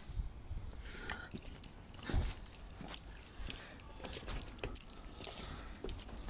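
Footsteps of a person walking up stone steps, with scattered light clicks and a faint metallic jingle as small metal items are carried.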